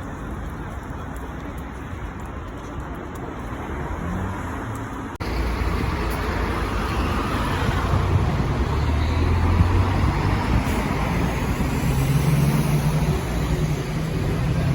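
City street traffic: a steady rush of cars and buses going by, with a low engine hum. The sound jumps suddenly louder about five seconds in.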